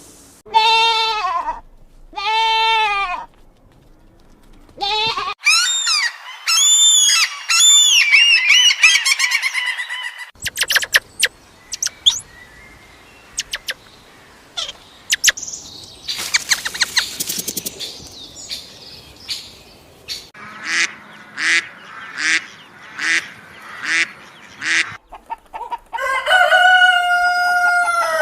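Calls of several different animals, mostly birds, in separate short clips one after another. It opens with two arched honking calls, then comes high twittering, a run of clicks, about nine short repeated calls, and a long call near the end.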